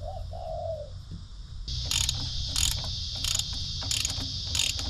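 Ratchet wrench clicking in short strokes, about six in three seconds starting about two seconds in, as bolts are run into the crank pulley. A steady high insect buzz starts at the same moment.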